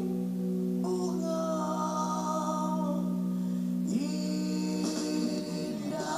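A live rock band with bass guitar, electric guitar and drums playing under singing, heard through a television's speaker; long notes are held, with the chord changing about one second and four seconds in.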